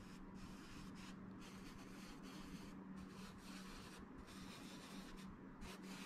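Faint scratchy dabbing and rubbing of a damp painting sponge loaded with acrylic paint on a gesso-primed canvas, several short presses with brief pauses between, over a faint low steady hum.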